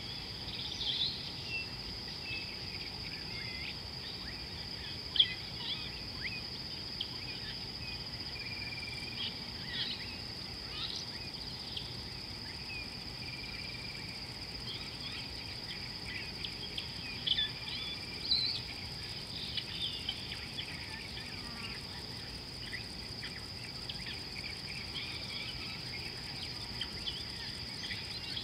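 Steady high-pitched insect trill with short bird chirps and calls scattered throughout, a few of them louder.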